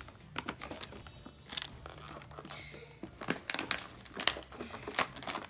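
Clear plastic toy packaging crinkling and crackling in the hands as it is unwrapped, in quick irregular bursts.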